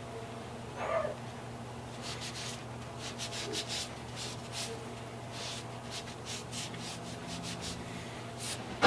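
A small wooden handplane part being rubbed by hand with an abrasive pad or rag, in quick runs of short scratchy strokes. There is a knock about a second in and a sharp click near the end.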